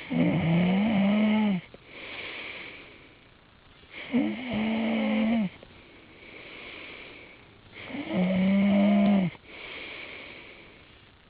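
A person snoring: three loud snores about four seconds apart, each holding a steady low pitch for about a second and a half. Quieter breaths come between the snores.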